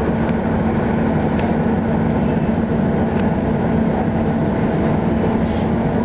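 A steady low hum and rumble of heavy rail machinery, with a few faint clicks.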